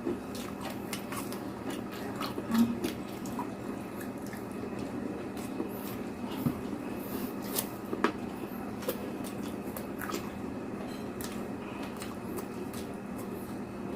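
Eating sounds of fried eggplant with egg: wet chewing and mouth smacks with a few scattered sharp clicks, over a steady background hum.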